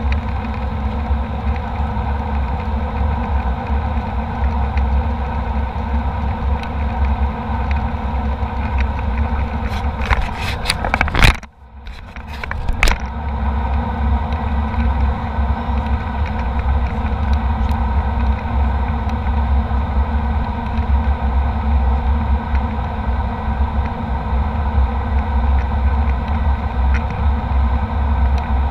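Steady drone of a jet airliner's cabin in flight: engine and airflow noise with a deep rumble and a few steady hums. About eleven seconds in, a quick run of sharp clicks and a brief drop-out break the drone before it resumes.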